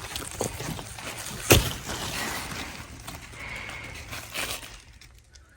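Rustling and handling noise among garden plants, with one sharp snap or knock about a second and a half in, then fading toward the end.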